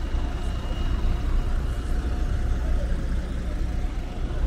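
City bus engine idling, a steady low rumble, with street traffic noise around it.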